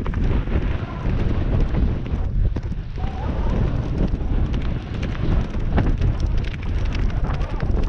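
Wind buffeting the microphone of a camera carried on a galloping horse, over the horse's hoofbeats on a dirt track as a rapid run of thuds.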